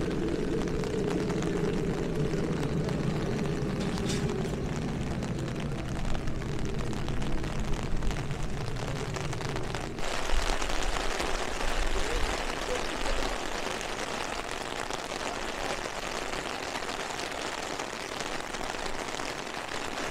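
Heavy rain falling, with wind rumbling on the microphone. The deep rumble stops abruptly about ten seconds in, leaving an even hiss of rain.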